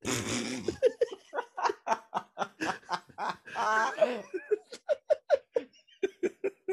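Hard, breathy laughter into a close microphone. It starts with a burst of breath, goes on as a long run of short laughs at about four a second, and has a high wavering squeal a little before the middle.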